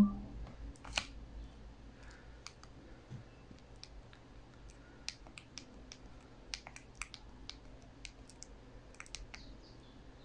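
Samsung SGH-J700 mobile phone keys being pressed: a short thump right at the start, then a string of light, irregular clicks as the handset's menu is worked through.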